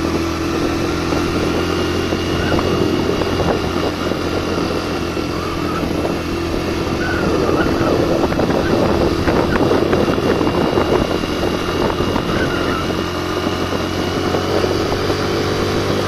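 Suzuki GN 125's single-cylinder four-stroke engine running steadily under load as it climbs a steep dirt track carrying a passenger. A rough crackling noise rides over the engine note, loudest about halfway through.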